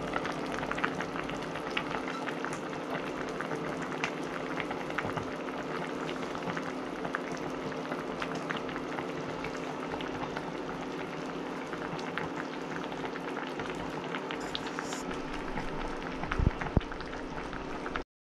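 Bulalo broth with cabbage boiling in a clay pot: a steady bubbling full of small pops over a low hum. Two louder knocks come near the end.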